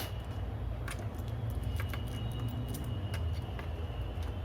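Scattered small clicks and taps of laptop parts being handled and fitted by hand, over a steady low hum.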